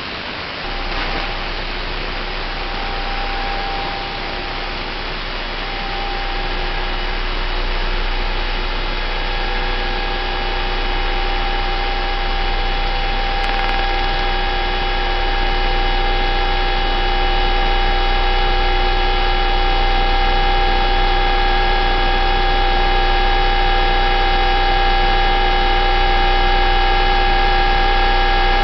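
Shortwave radio reception of UVB-76 ('The Buzzer') giving a strange humming noise: a low steady drone with several steady higher tones over radio static hiss. The drone starts about a second in, and the tones grow slowly louder.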